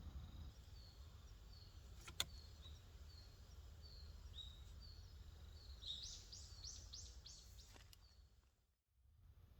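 Faint bird calls: short high notes repeating about twice a second, then a quick run of rising-and-falling notes about six seconds in. A single sharp click sounds about two seconds in, over a low steady rumble, and everything fades out near the end.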